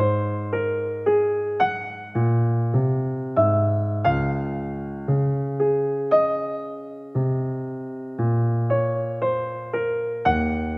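Background piano music: chords and single notes struck about once or twice a second, each ringing and fading, over a low bass line.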